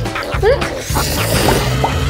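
Background music with a bouncy, repeating bass line, with a few short rising pitch glides laid over it.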